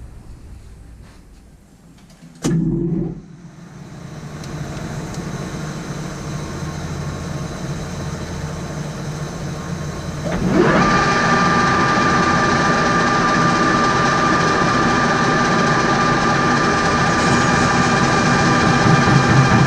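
Machine-shop motor, likely a metal lathe, starting up: a faint machine sound builds up, then about halfway through it jumps in level with a rising whine and settles into a loud, steady, high-pitched running hum. A short loud knock-like burst comes near the start.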